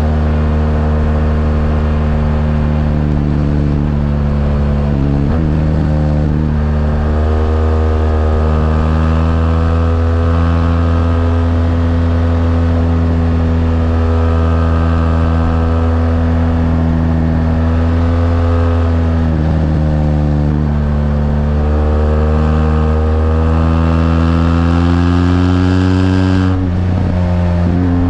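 BMW R1200GS LC's flat-twin boxer engine running steadily under way. Its pitch dips briefly about five seconds in, again about twenty seconds in, and once more near the end.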